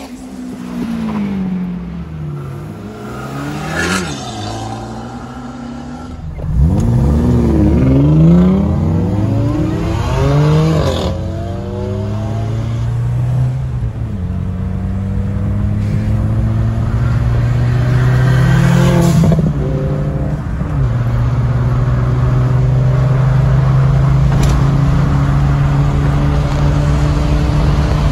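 Cars accelerating past at speed, their engine notes rising and falling as they go by. Then a car engine heard from inside the cabin, droning steadily and slowly climbing in pitch under acceleration, with one drop in pitch like a gear change about twenty seconds in.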